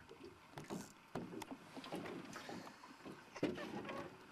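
Irregular clicks and knocks of a spinning rod and reel being cranked in a small boat against a hooked fish, with one louder knock a little past three seconds in.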